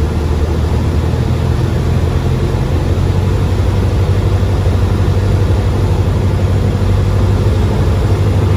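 Single-engine Cessna 172's piston engine and propeller droning steadily as heard inside the cabin, at reduced power on final approach to land.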